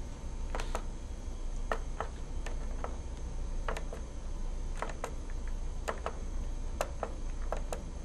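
Push buttons on an alarm dialer's keypad pressed one digit at a time to enter a phone number, a sharp click about once a second, often a quick double click of press and release.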